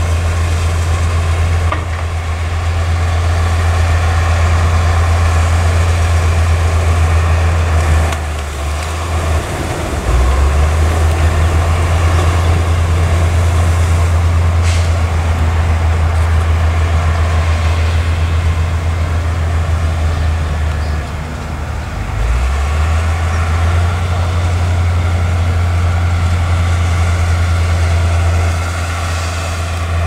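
Crawler bulldozer's diesel engine working under load while pushing soil, a loud steady low drone. Its pitch and loudness dip and shift twice, about a third of the way in and again about two-thirds through, as the engine's load changes.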